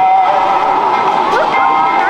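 A crowd of voices talking and calling over one another, with a steady tone running underneath.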